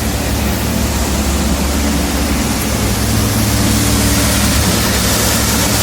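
Shelled corn pouring from a ten-wheeler dump truck into a grain bin's pit, a steady rushing noise over the low, even hum of running engines and grain-handling machinery.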